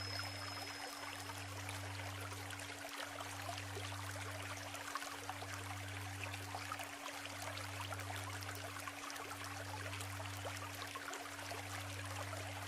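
Isuzu River shallows murmuring in an even, continuous rush. Under it runs a steady low hum, and a deeper hum that drops out briefly about every two seconds.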